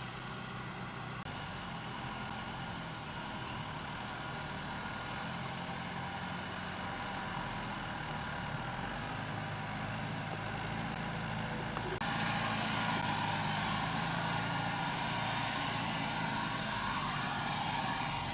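Farm tractor engine running steadily under load as it pulls a multi-row field implement, getting louder as it comes closer.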